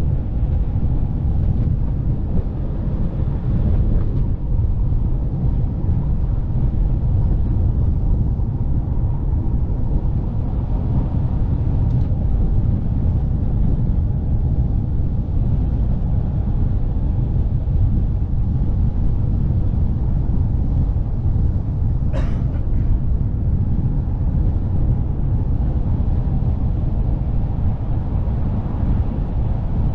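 Steady low rumble of a velomobile on the move: road and wind noise on the microphone. A brief sharp sound cuts through about three-quarters of the way in.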